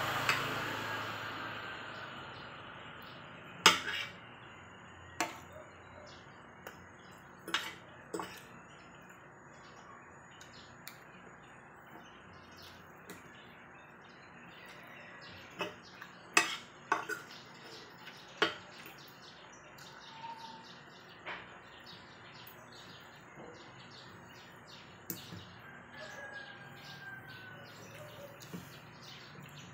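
Metal spoon and fork clinking and scraping against a ceramic plate while eating rice and fried chicken: about a dozen sharp, irregular clinks. A soft rushing noise fades over the first couple of seconds.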